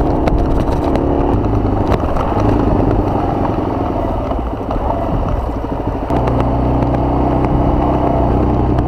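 Suzuki DR-Z400S dual-sport motorcycle's single-cylinder engine running while riding. About six seconds in, the engine settles into a steady note.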